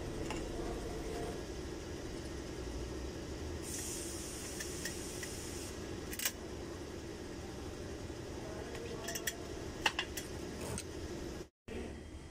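Small metallic clicks from rear drum-brake hardware (shoe springs and locks) being fitted by hand, a few sharp clicks in the second half, over a steady workshop hum; a brief hiss about four seconds in.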